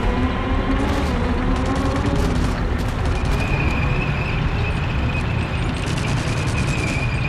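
Tank sound effect: a heavy engine rumble with a rapid clatter of tracks, and a steady high whine joining about three seconds in.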